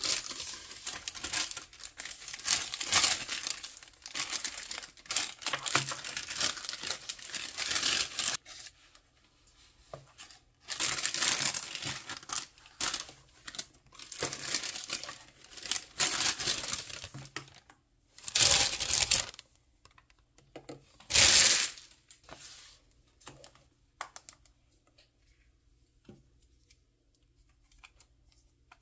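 Thin plastic shopping bag rustling and crinkling as things are pulled out of it, with two short, louder crinkles past the middle. Near the end the sound thins to a few faint clicks of hard plastic gacha capsules being handled.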